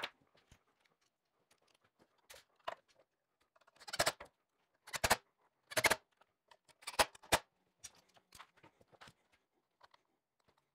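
Hand work on electrical wiring in a plastic junction box: a scattered string of short, sharp clicks and snaps from a wire-stripping tool and the wires and box being handled, loudest around the middle.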